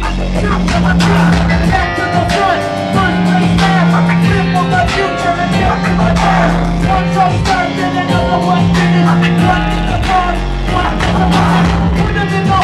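Live rap-rock band playing loud, with a steady beat, heavy low end and electric guitar. A vocalist sings into a microphone over it through the PA.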